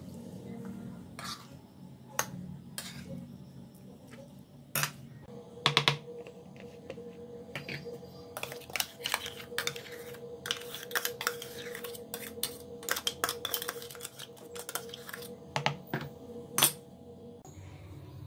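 Steel spoon scraping and tapping against a stainless-steel mixer-grinder jar, an irregular run of quick clicks and knocks with a few louder clanks, over a faint steady hum.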